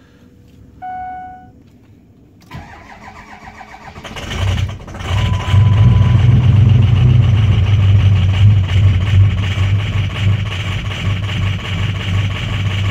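Straight-piped 6.0 L Powerstroke turbo-diesel V8 in a 2003 Ford F-350, started from cold. A short chime sounds about a second in, the starter cranks from about two and a half seconds, and the engine catches near four seconds in. It then runs loud and steady at idle.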